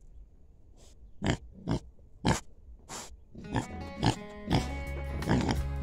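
Pigs snuffling at close range, a series of short noisy puffs of breath about every half second. Background music comes in about three and a half seconds in, with the puffs going on over it.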